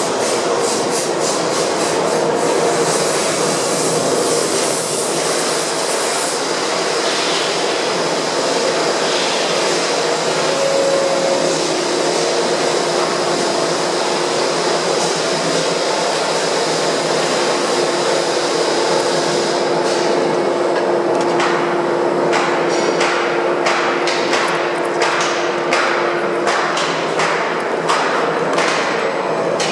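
Droop & Rein FSM 1255 bed milling machine running, with a steady machining noise and faint held tones. Repeated sharp ticks or knocks come at the start and again through the last third.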